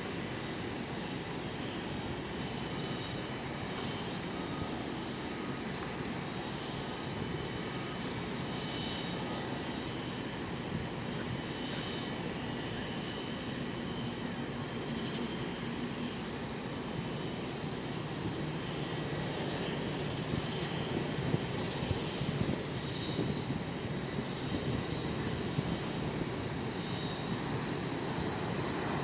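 Jet airliner engines running through a takeoff, a steady rushing roar with a faint whine on top that grows slowly louder toward the end.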